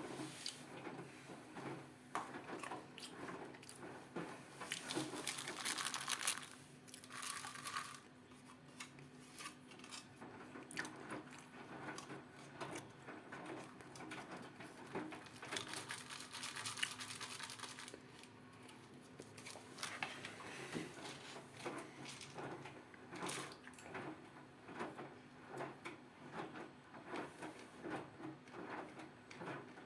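Ariston 4.5 kg washing machine partway through a 40° cotton wash: the drum motor hums steadily while wet laundry and water slosh with irregular small knocks and splashes. Twice there is a louder spell of rushing noise lasting a couple of seconds.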